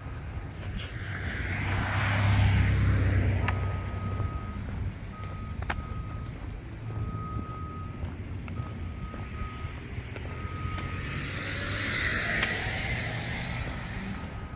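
A vehicle's reversing alarm beeps slowly and steadily, one high beep every second and a half or so. Traffic passes close by twice, once about two seconds in and again near the end, and its engine and tyre noise swells over the beeping.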